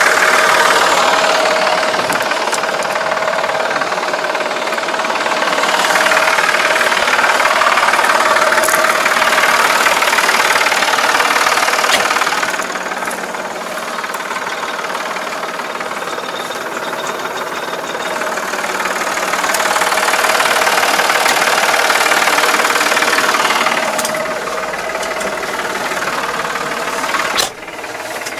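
Massey Ferguson 2220 tractor's diesel engine running steadily under load while it drives a rear-mounted mower through grass, the sound swelling and easing a few times.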